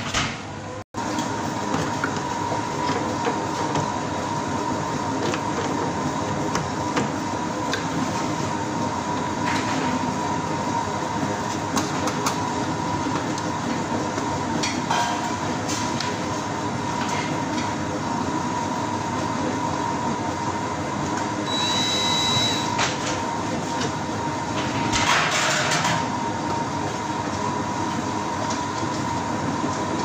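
Steady fan noise with a constant hum-like tone, a few short louder rushes, and a brief high tone a little past the middle.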